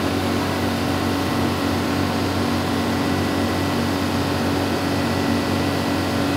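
Atlas 160 W wheeled excavator's diesel engine running at a steady speed, an even drone.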